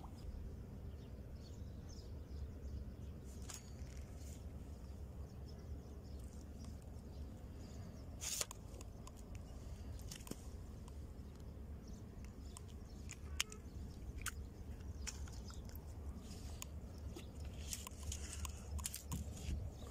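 Faint outdoor background: a steady low rumble with scattered clicks and crackles of handling, the loudest about eight and thirteen seconds in.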